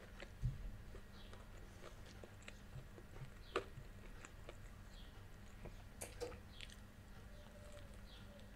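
Close-miked chewing of a Turkish pide, a meat-topped flatbread, with the mouth closed: soft, scattered mouth clicks and smacks every second or so over a faint background hum.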